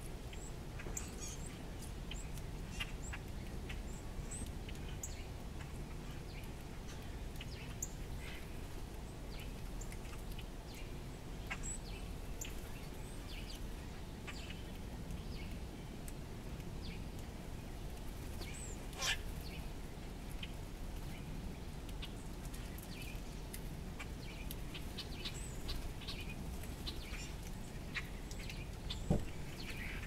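Backyard birds at a feeding spot giving short, scattered chirps and clicks, with one louder, sharper call about two-thirds of the way through, over a steady low rumble.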